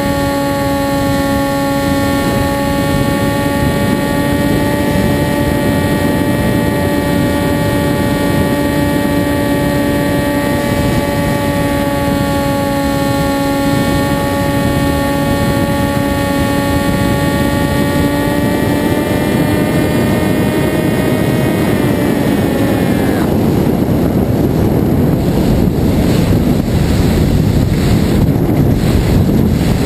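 Zagi RC flying wing's electric motor and propeller, heard from on board: a steady whine that climbs slightly in pitch, then winds down and fades about 22 seconds in. After that, wind rushes over the microphone as the wing glides.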